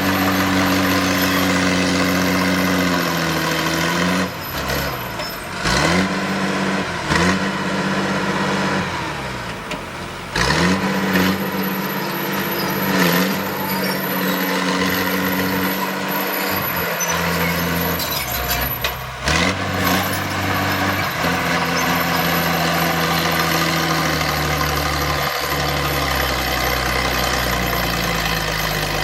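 Heavy diesel earthmoving machinery running at work, its engine note dropping and rising again several times as the load and revs change. A few sharp clanks come through over the engine.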